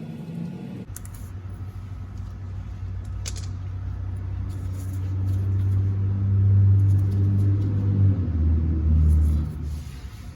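A motor running with a low hum that swells louder over several seconds, drops in pitch about eight seconds in, then fades, with a couple of sharp clicks early on.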